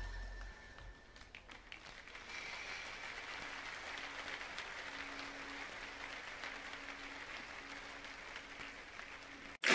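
An audience applauding softly as the music fades out at the start.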